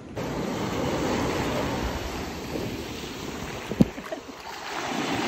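Small waves washing in over a dark, gritty sand shore, with wind on the microphone. A short thump sounds about four seconds in.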